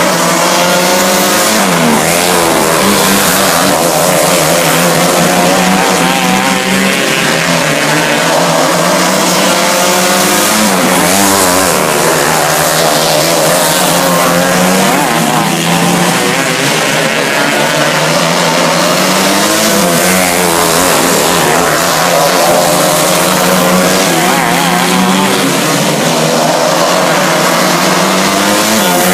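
Engines of several 250cc winged dirt-oval racing karts running at race pace, their pitch rising and falling over and over as they pass and work through the turns.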